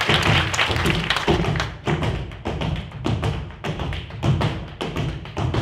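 Flamenco dance footwork: shoe stamps and heel taps on the stage floor, sharp separate knocks in an uneven rhythm of a few a second. Applause dies away in the first second or so.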